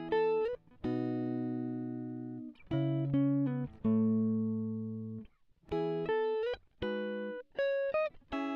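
Background music of guitar chords, each struck and left to ring and fade, some with a quick upward bend in pitch.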